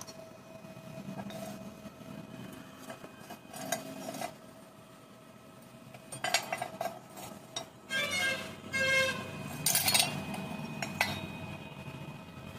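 Steel bar pieces knocked and set down on a steel plate worktable: scattered clinks and scrapes of metal on metal, some ringing briefly, the busiest and loudest stretch about two-thirds of the way through. A faint steady hum runs underneath.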